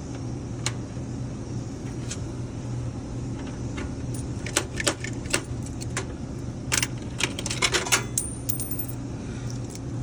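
Coins clinking and sharp metallic clicks as a vending machine's coin mechanism is cleared of a coin jam caused by sticky coins. The clicks come singly at first and grow more frequent from about four seconds in, over a steady low hum.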